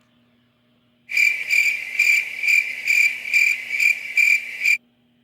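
High-pitched electronic beeping: one steady tone pulsing about twice a second for nearly four seconds, starting and stopping abruptly.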